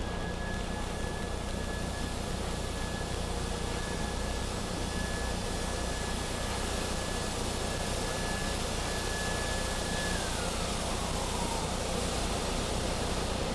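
Automatic car wash spraying water and foam over the car, heard from inside the cabin as a steady rushing noise. A thin high whine from the wash machinery holds steady, then falls in pitch about ten seconds in.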